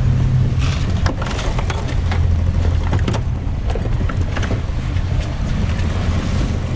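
Twin outboard engines running steadily, a low drone with wind and water noise over it. Scattered sharp clicks and knocks sound through it.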